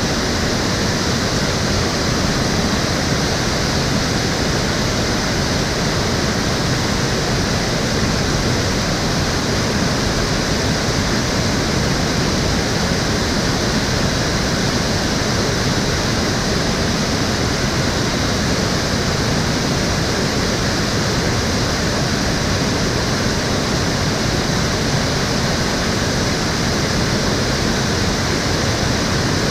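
Steady rushing of water flowing and splashing in Cheonggyecheon stream, a constant even noise without change.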